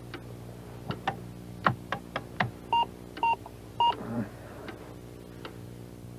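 Scattered sharp clicks, then three short electronic beeps about half a second apart, over a steady low hum. These are typical of a computer's beeps and clicks.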